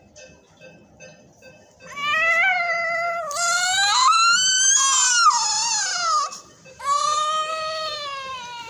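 Newborn baby crying: a long wail that starts about two seconds in and rises and falls, then after a short breath a second wail that fades away near the end.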